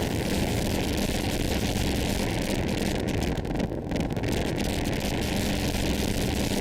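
Synthesized noise drone from the Qun mk2 synthesizer: a steady, unbroken wash of noise with a faint low hum running under it.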